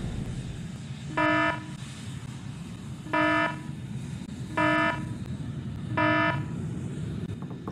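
Four electronic countdown beeps, each about half a second long and all at the same pitch, spaced a second or two apart, over a steady low rumble.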